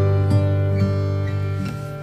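Background music: a plucked acoustic guitar with held chords.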